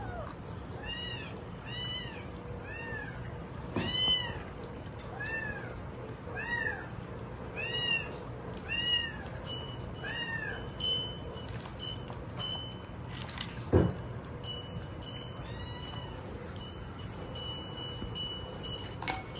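A kitten mewing over and over, high-pitched, short rise-and-fall calls about one every half second or so for some ten seconds, then stopping. After that a faint high ringing tone comes and goes, and there is a single knock about fourteen seconds in.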